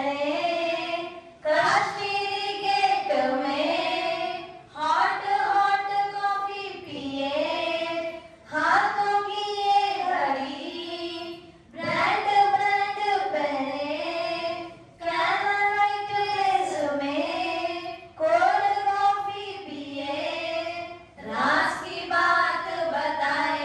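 A woman singing a Hindi devotional song into a microphone with no instruments, in phrases of about three seconds separated by short breaths, the melody repeating phrase after phrase.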